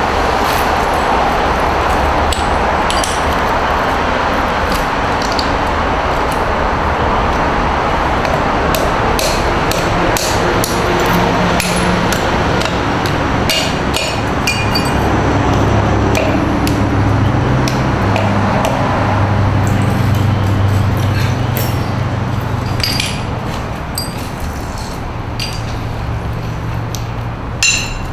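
Shards of a smashed porcelain sink being broken up and knocked together by gloved hands, giving irregular sharp clinks and cracks of ceramic, with one louder knock near the end. A loud steady background noise with a low hum runs underneath.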